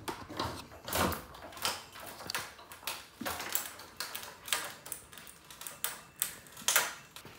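Wooden wall studs knocking and clattering as a cut-free section of 2x4 framing is wrenched loose and tipped over, giving a string of irregular sharp knocks about one or two a second.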